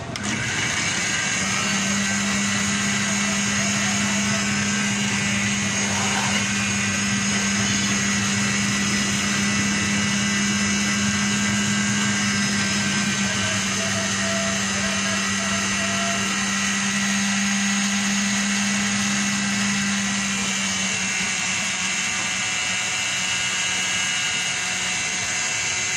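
Electric countertop blender switched on and running steadily, blending banana and milk into a milkshake, with the lid held down by hand. Its steady pitched tone drops away about twenty seconds in while the motor keeps running.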